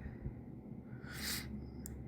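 A person sniffing once through the nose, a short hiss about a second in, followed by a small click, over a low steady hum.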